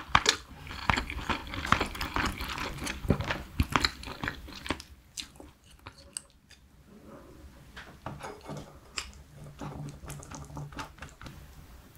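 Close-miked chewing of a mouthful, with wet mouth sounds and small crunches, dense for about the first five seconds. Then it goes quieter, with scattered light clicks of wooden chopsticks and spoon as fish is picked off the bone.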